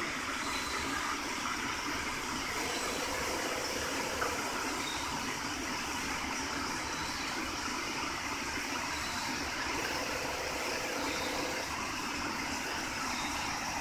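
Steady whirring machinery noise, even and unbroken, with a faint hum that comes and goes twice.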